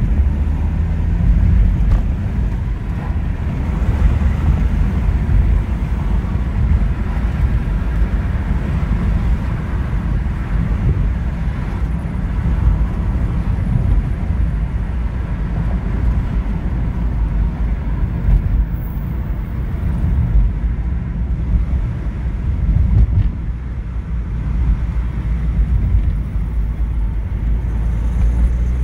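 BMW M47N four-cylinder common-rail diesel engine running steadily with a ticking, knocking noise from its Bosch injectors. The fault was cured by having all four injectors rebuilt.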